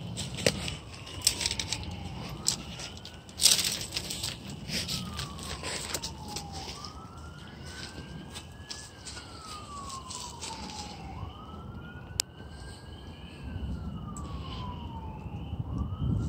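An emergency-vehicle siren wailing, its pitch rising quickly then sliding slowly down, about four cycles. Scattered clicks and crackles run over it, the loudest a sharp knock about three and a half seconds in.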